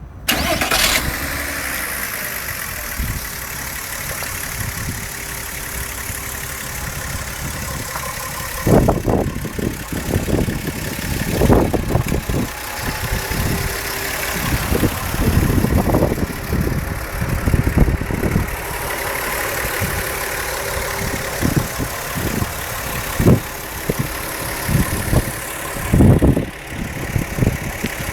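2001 Volkswagen Jetta 2.8 VR6 engine starting and idling with an abnormal noise, then revved up and down several times from about nine seconds in. The rattle comes from the worn bushings on the intake manifold shift rod.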